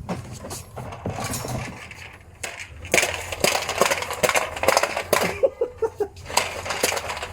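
Hard objects clattering and clinking in rapid, irregular knocks, getting louder about three seconds in.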